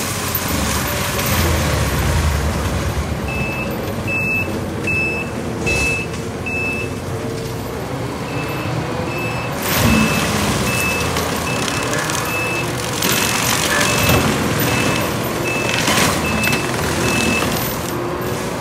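Takeuchi TL12V2 compact track loader's diesel engine running hard while its Denis Cimaf 180D mulcher head grinds brush, with a few louder surges as it bites into material. A backup alarm beeps about twice a second from a few seconds in until near the end, with a short break partway through.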